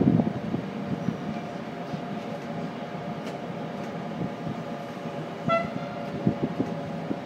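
Steady rolling noise of a moving train heard from on board, wheels on rail with a steady hum and scattered light clicks. A single short high toot sounds about five and a half seconds in.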